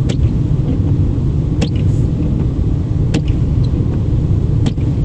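Steady low road and engine rumble inside a car's cabin, driving on a slushy road. A short sharp tick comes about every second and a half.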